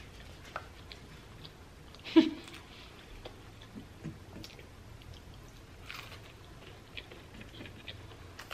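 A person chewing fried food with scattered small mouth clicks and crunches, and a brief vocal sound about two seconds in.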